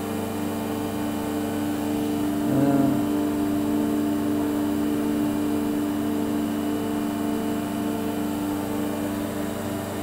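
Steady hum of a powered-up CNC machining centre, its motors and pumps running, made of several steady tones with one tone pulsing quickly on and off. A brief gliding chirp sounds about two and a half seconds in.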